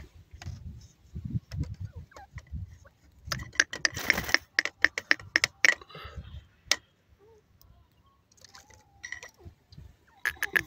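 Grey francolin making rapid trains of short, sharp clicking calls, several a second, in a burst from about three to seven seconds in and again near the end. A low rumble comes before the first burst.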